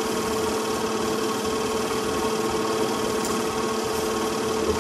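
Film projector running with a steady mechanical whir, a constant hum and hiss under the old silent race footage.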